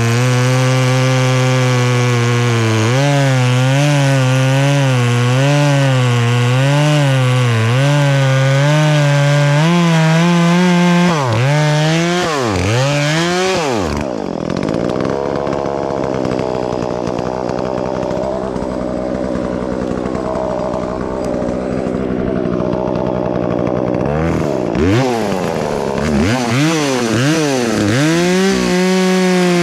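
Chainsaw cutting through a maple log, the engine pitch wavering as it works under load. About 11 seconds in it revs up and down and drops to a lower, steady running speed for about ten seconds. Near the end it revs again and goes back into a cut.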